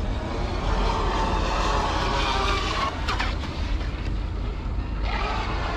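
Joysway Bullet RC speedboat's electric motor whining as the boat runs across choppy water, its pitch sliding down and back up about three seconds in and again near the end. A steady low rumble runs underneath.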